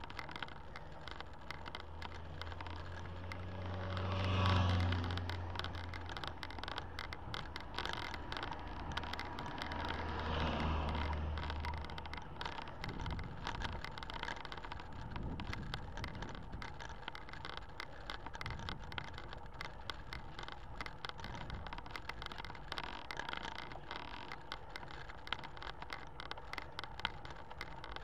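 Two motor vehicles pass the cyclist, about four and ten seconds in, each swelling to a low engine hum and fading away. Between and after them, steady road noise from the moving bicycle with dense, irregular ticking and rattling.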